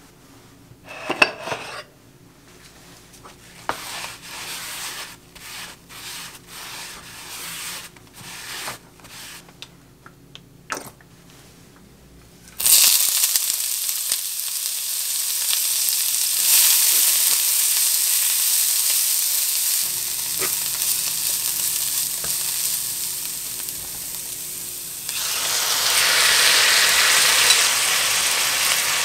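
A string of soft, short kitchen clatters. Then, about halfway in, a sudden loud sizzle as sliced onion and carrot hit a hot, lightly oiled frying pan and fry. The sizzle steps up louder near the end as marinated bulgogi beef goes into the pan.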